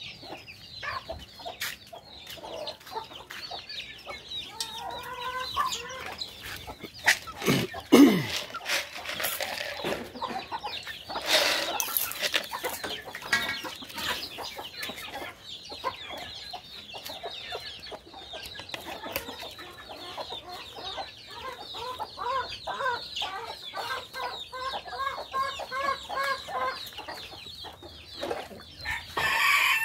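Chickens clucking, with chicks peeping throughout; a hen clucks in a quick, even series for several seconds in the second half. A sudden loud knock comes about eight seconds in, and a louder call near the end.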